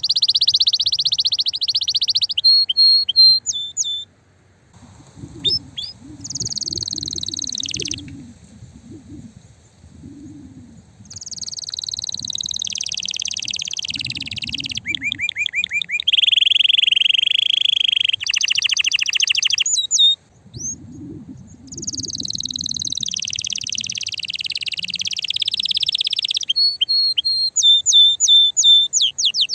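Male canary singing in excited breeding-season song: phrases of rapid high trills and rolling notes, some falling in pitch, with short pauses between phrases.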